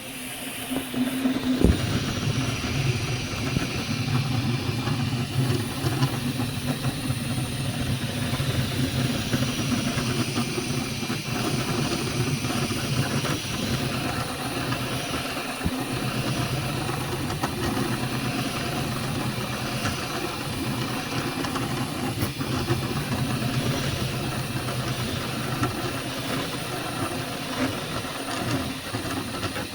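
A small motor running steadily with a hum and a hiss, switched on at the start with a click just after.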